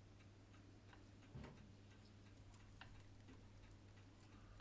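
Faint, steady ticking of a clock or watch, about two to three ticks a second, over a low electrical hum, with one soft knock about a second and a half in.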